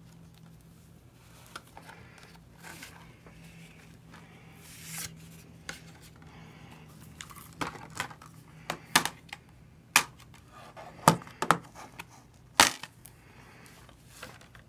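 A plastic Blu-ray case being unwrapped and opened by hand: soft rustling and crinkling of plastic, then a run of sharp plastic clicks and snaps in the second half as the case is opened and handled.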